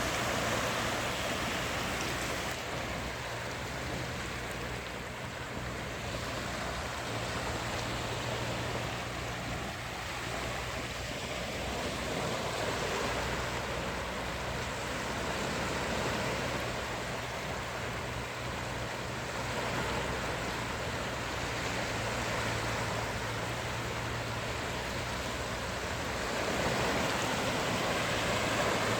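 Sea waves washing onto a beach: a continuous rushing surf with slow swells in loudness every several seconds, growing louder near the end.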